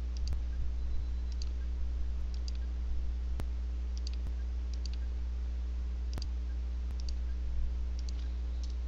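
A computer mouse button is clicked about ten times, roughly once a second, each click a quick double tick of press and release. A steady low electrical hum runs underneath.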